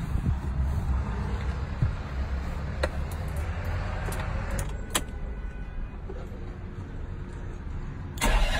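Low rumble and a few sharp clicks inside a Ferrari 599's cabin. Near the end a starter motor begins cranking the car's V12.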